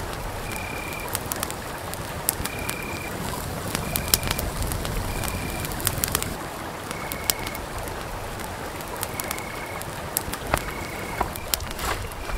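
Wood campfire crackling with sharp irregular pops. Over it, a night animal calls a short steady whistled note, high-pitched, repeating about once a second.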